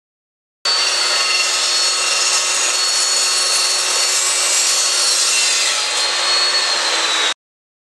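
Evolution S355CPSL 14-inch cold-cut metal chop saw, its carbide-tipped blade running and cutting through a thin-walled 1 x 1/16 inch rusty steel tube: a steady, loud grinding whine of saw teeth on metal with a thin high whistle that sags slightly near the end. The sound starts and stops abruptly.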